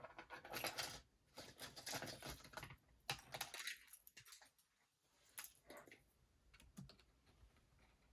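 Faint, irregular clicks and scraping from a laptop keyboard being pried at its retaining tabs, its keys clicking as they are pressed and lifted.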